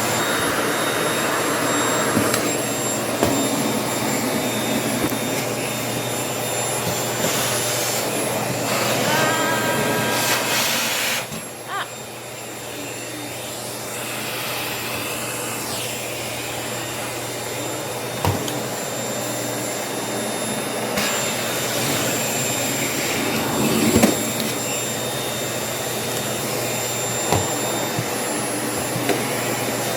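Household vacuum cleaner running steadily with a high whine, briefly quieter about eleven seconds in, with a few knocks as the nozzle bumps about.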